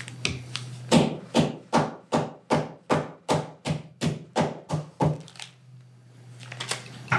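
Metal meat mallet pounding a flank steak through a plastic zip-top bag on a towel-padded cutting board: about a dozen quick, even strikes, roughly three a second, to tenderize the meat, stopping about five seconds in, then a few faint clicks and rustles.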